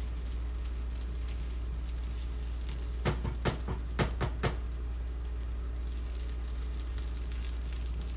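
Faint sizzle from a hot pan over a steady low hum. About three seconds in, a kitchen utensil clicks sharply about six times in quick succession as the corn is portioned out.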